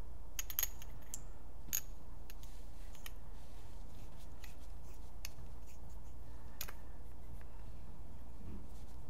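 Light clicks and taps of small metal paintball-marker internals, greased with O-rings, being handled and fitted together by hand, with a few sharper clicks in the first two seconds and one near seven seconds. A steady low hum lies underneath.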